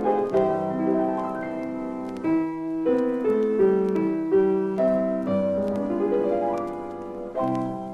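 Solo piano music: a run of notes and chords that ring on, getting a little softer toward the end.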